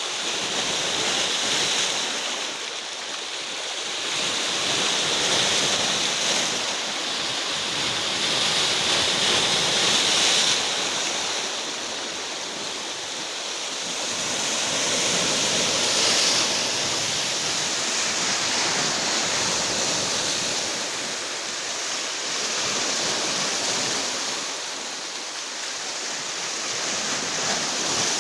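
Rough Black Sea surf breaking on the shore in a storm, a continuous rush of water that swells and eases every few seconds as the waves come in.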